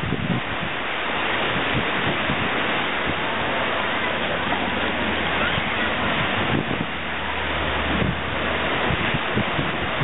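Wind buffeting the camera microphone: a steady rushing hiss with irregular low thumps from gusts.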